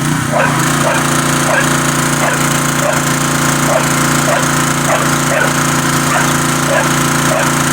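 A dog barking over and over, roughly every two-thirds of a second, at a loud motor running steadily in the background.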